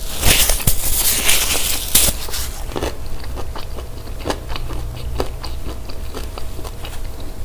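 Paper tissue rustling close to the microphone as a mouth is wiped, for about the first two and a half seconds, then chewing with scattered small mouth clicks.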